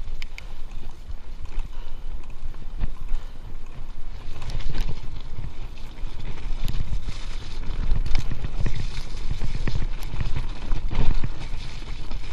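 Giant Stance full-suspension mountain bike riding over a dirt and leaf-covered trail: tyres rolling on the ground, with irregular clicks and knocks as the chain and frame rattle over bumps, getting busier and louder about four seconds in. A steady low rumble of wind on the camera microphone runs underneath.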